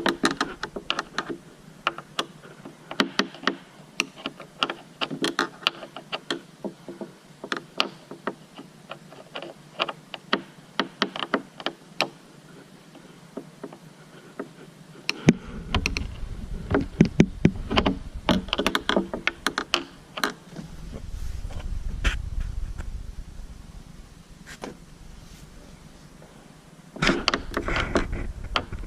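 Irregular clicks and knocks of hands prying and working at stuck plastic car trim and its clips, with stretches of low rumbling handling noise.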